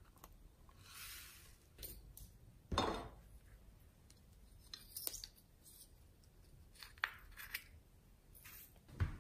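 Hands working slime and foam beads: scattered quiet crackles, clicks and squishes, with a louder one about three seconds in.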